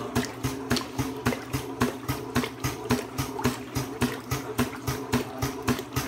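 Small motor-driven wave maker in a water tank running with a steady hum, its paddle knocking and slapping the water about four times a second.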